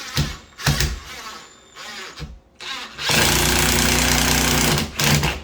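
Power drill driving a screw through a door hinge into the jamb: a few short trigger bursts, then a steady run of about two seconds starting about three seconds in, and one last short burst near the end.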